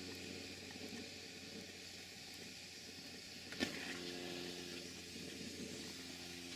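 Stuart Major Beam model steam engine running on steam: a steady soft hiss of escaping steam with no distinct exhaust beat, the engine being very precise and quiet. A single sharp click comes about three and a half seconds in, and a faint steady hum follows it.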